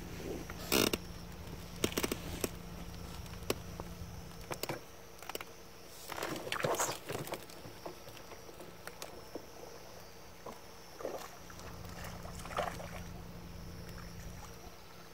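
Quiet waterside ambience: a steady low hum with scattered small knocks, clicks and brief rustling, sloshing noises, the busiest stretch a little under halfway through.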